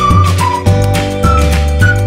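Background music: a light, upbeat tune with a high melody line over a steady bass.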